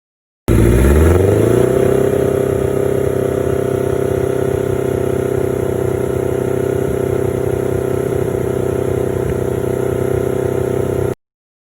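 1980 Kawasaki KZ650's air-cooled inline-four engine running through an aftermarket exhaust. It rises in pitch over the first second or so, then holds at a steady speed before cutting off abruptly.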